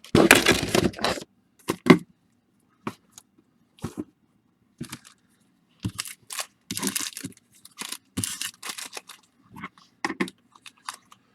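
Baseball card packs being handled and tossed down into piles: irregular crinkles, rustles and light slaps of packs, the loudest burst in the first second.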